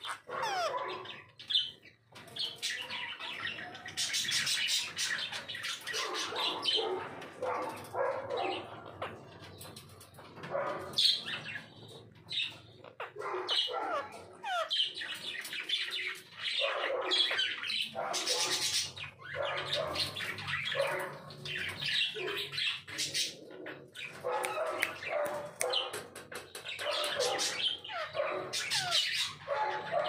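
Parakeets chirping and squawking: many short, quick calls, some sliding in pitch, almost without pause, with brief lulls a couple of seconds in and again about a third of the way through.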